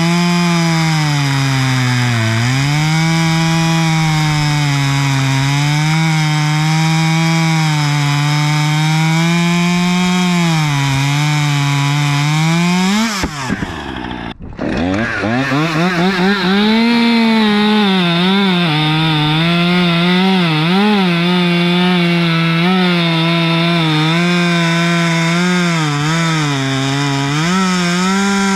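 Husqvarna T540 XP Mark III 39 cc two-stroke top-handle chainsaw at full throttle cutting hardwood, the engine pitch wavering and dipping as the bar is leaned into the log. About halfway through, the pitch falls away and the sound breaks off briefly, then the saw revs back up and cuts again.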